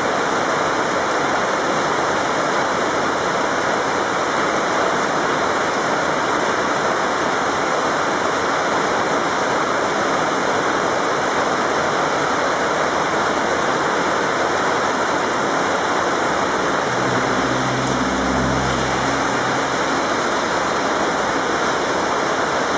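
Heavy tropical downpour: a steady, even hiss of rain falling on the street, grass and canal. A low hum rises out of it for a few seconds near the end.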